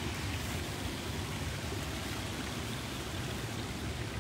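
Steady rush of running water, an even hiss with no distinct events.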